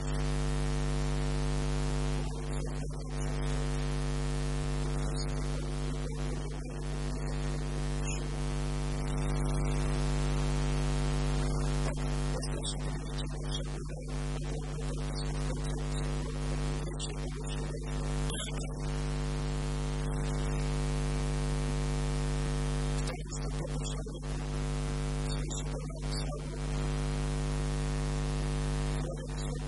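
Steady electrical mains hum with a buzz of harmonics over an even hiss. The hiss drops out briefly several times.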